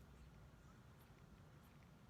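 Near silence: a faint low background rumble with a few very faint ticks.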